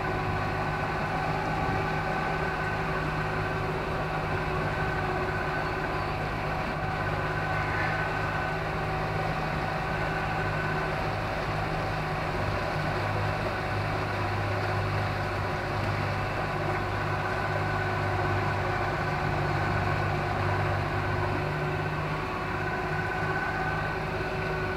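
Outboard motor of a MacGregor 26-X sailboat running steadily while the boat motors along, an even, unchanging engine hum.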